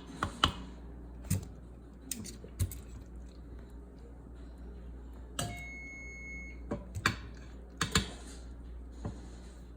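Scattered sharp clicks and knocks of kitchen handling, with one electronic beep lasting about a second near the middle.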